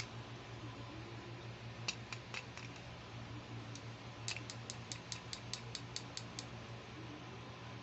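Light plastic clicks of a toy makeup applicator tapping on a plastic eyeshadow compact: a few about two seconds in, then a quick run of about a dozen, roughly five a second, over a steady low hum.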